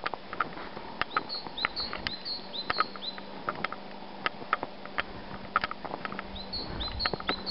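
Footsteps crunching on packed snow, an uneven run of short crisp squeaks and crunches. A small bird sings twice: a quick run of about six short, high notes, once near the start and again near the end.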